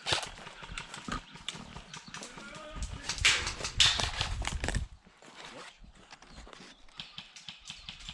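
Quick footsteps of an airsoft player moving over rough outdoor ground, with gear rustling. From about three to five seconds in there is a louder, denser run of knocks and rustling, then quieter scattered steps.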